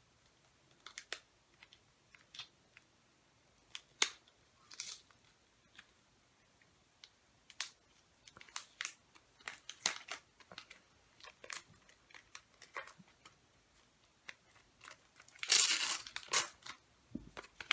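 Paper and plastic packaging being handled: scattered small clicks and rustles, then a louder burst of tearing and crinkling near the end.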